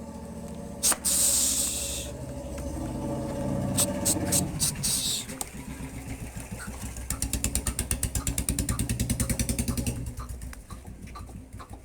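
An engine running with a low, evenly repeating thud, with a short burst of hiss about a second in and a few sharp clicks a few seconds later.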